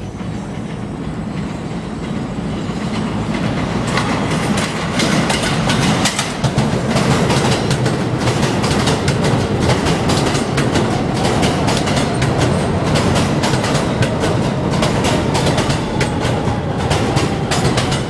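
R160B subway train pulling in alongside an elevated platform. It grows louder over the first few seconds, then runs loud with a rapid clickety-clack of wheels over rail joints. A faint whine slowly falls in pitch near the end as the train slows.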